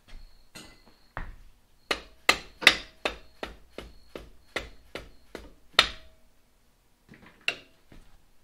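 Hammer blows driving the greased swingarm pivot axle of a 1992 Ducati 900SS home: a couple of light taps, then about a dozen sharp, ringing metal strikes in quick succession, roughly two and a half a second, and after a pause two more lighter taps near the end.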